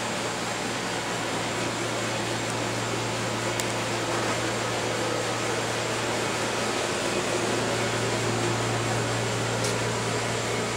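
Steady background hum and hiss, like a fan running, with two light clicks about four seconds and ten seconds in.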